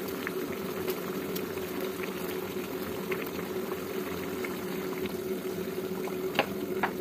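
Watery vegetable curry simmering and bubbling steadily in a wok, over a faint steady hum. A few light clicks of utensils against the pan come near the end, as it is stirred.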